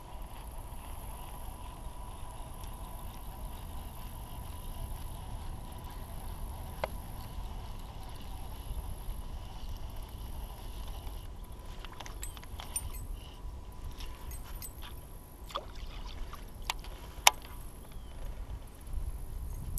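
Kayak fishing sounds: a steady low rumble with small noises of the boat and baitcasting tackle. From about twelve seconds in come scattered small clicks and knocks, then one sharp click shortly before the next cast.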